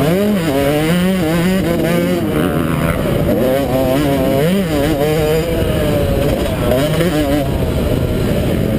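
250 motocross bike's engine heard onboard at race pace, its pitch rising and falling repeatedly as the throttle is opened and closed and gears change.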